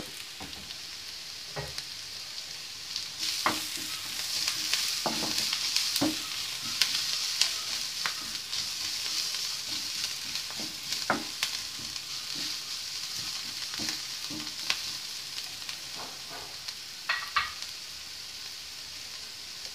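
Chopped onions and green chillies sizzling in a frying pan as a spatula stirs spice powders through them, with scrapes and light knocks of the spatula against the pan. The sizzle swells a few seconds in while the mix is turned, then eases off.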